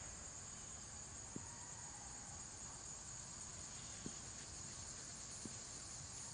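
Steady high-pitched buzz of insects, with a few faint ticks.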